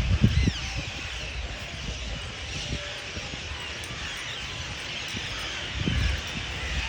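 A large flock of birds calling together at an evening roost, a dense chorus of many short rising and falling calls. There are low bumps just after the start and again about six seconds in.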